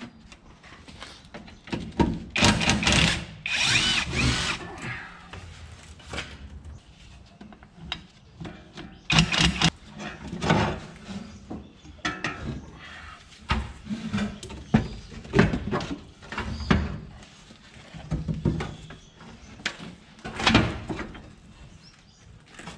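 Cordless drill running in several short bursts while the air cleaner is being unbolted from the truck engine, with knocks and clanks of metal parts in between.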